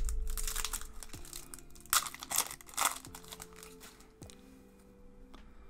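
Foil booster-pack wrapper crinkling as it is torn open and handled. There is a flurry of rustles over the first three seconds, with the sharpest crackles around two seconds in, and then it dies down.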